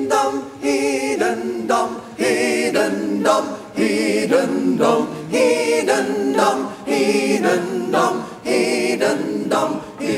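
A choir of voices singing a cappella in short phrases with brief gaps between them, with no drums or guitars under it, as a break within a heavy metal song.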